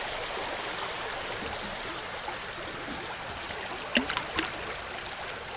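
Mountain stream rushing over boulders, a steady rush of water, with a few short sharp clicks about four seconds in.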